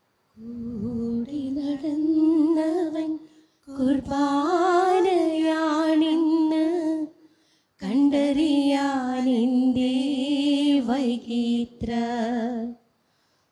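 A single voice slowly singing a Malayalam communion hymn, unaccompanied. It comes in three long phrases with wavering held notes and short silent breaks between them.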